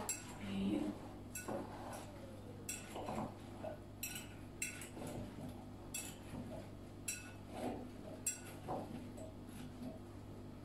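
A metal fork clinking against a glass bowl about once a second while tossing cubes of raw pumpkin with seasoning.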